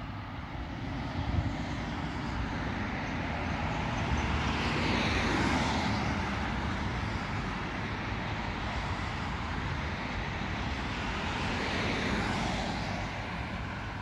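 Road traffic: cars passing by over a steady low rumble, the tyre and engine noise swelling as one car goes past about five seconds in and another near twelve seconds.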